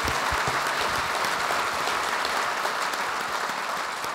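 Audience applause, with the panelists on stage clapping too. It is dense and steady, then eases off near the end.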